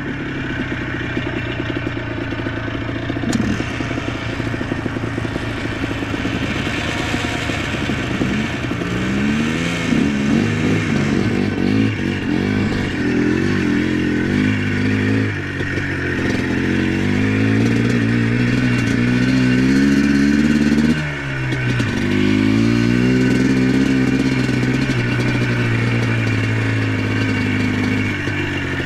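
ATV engine running under way, its pitch rising and falling again and again as the throttle opens and eases off, with a brief drop about three-quarters of the way through. The rider suspects a transmission fault from the way it sounds.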